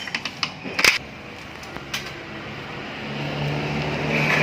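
Sharp metallic clicks and knocks from hand tools working on the transmission oil pan, loudest about a second in. A steady rushing noise with a low hum builds up over the last second or so.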